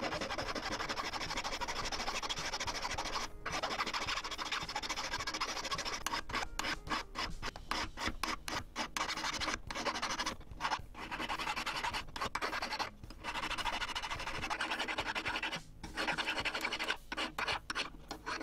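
Hand file scraping back and forth across a silver ring, filing its soldered joints flat. The strokes run on continuously, with brief pauses that come more often after about six seconds.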